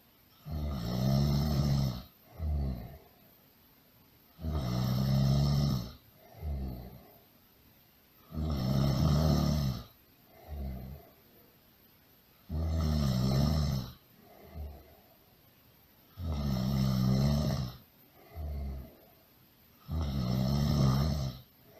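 Loud snoring in an even, repeating rhythm: six long snores about four seconds apart, each followed by a shorter, softer one.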